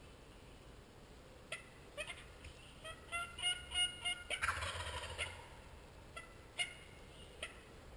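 Wild turkey calling in the woods: scattered notes, then a quick run of pitched calls, then a rattling gobble about four and a half seconds in, which is the loudest sound. A few single calls follow near the end.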